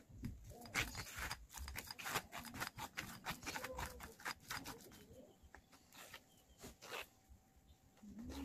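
Silicone spoon pressing and scraping boiled potato through a stainless-steel mesh sieve: quick runs of soft scratchy rasps and taps, busiest in the first few seconds and sparser toward the end.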